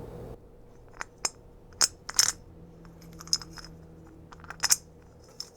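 Small metal parts of a ceiling light fixture clicking and clinking as they are handled, about half a dozen sharp separate ticks.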